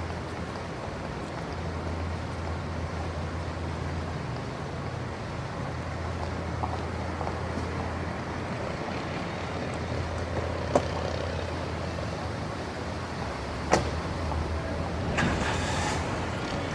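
City ambience of light traffic under a steady low rumble. Two sharp clicks come about 11 and 14 seconds in, and a short hiss follows near the end.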